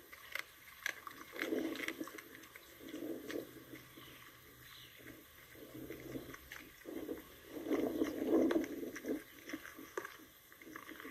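Dog chewing and crunching on a whole rabbit carcass, in irregular bouts of a second or so with sharp clicks, loudest about eight seconds in.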